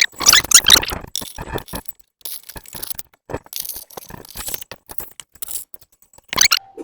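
Welding arc crackling in irregular short bursts as plug and tack welds are laid on a steel motor mount bracket. It is loudest in the first second, with another loud burst near the end.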